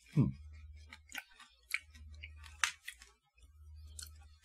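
A person crunching tiny hard-shelled chocolate candies, several separate crisp crunches a second or so apart, over a low steady hum. A short falling vocal "mm" at the very start is the loudest sound.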